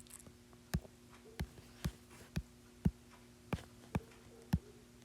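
A run of sharp single clicks, about two a second, from clicking through pictures on a computer, over a faint steady hum.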